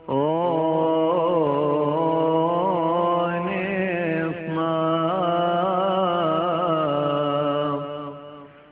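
Male voices chanting an unaccompanied Coptic church hymn: one long, ornamented phrase that winds up and down in pitch over a low note held steady beneath, fading out near the end.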